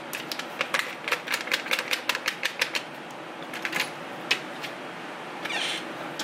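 Light kitchen clatter: a rapid run of sharp clicks and taps, about four or five a second, for roughly the first three seconds, then a few scattered knocks and a brief rustle near the end.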